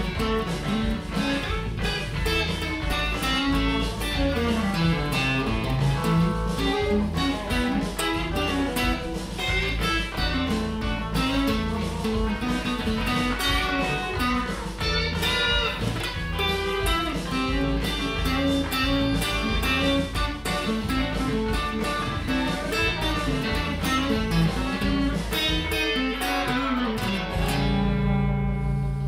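Stratocaster-style electric guitar played through an amp, picking melodic lead lines over a steady bass and beat. Near the end it settles on a held chord that rings out.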